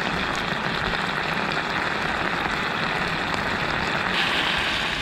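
Marinated pork bulgogi sizzling in a hot pan, a steady hiss that turns a little brighter about four seconds in.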